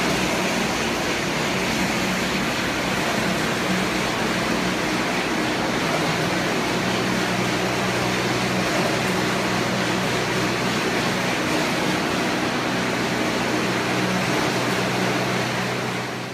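Belt-driven screw air compressor running steadily: a constant rush of air and machinery noise over a low, even hum.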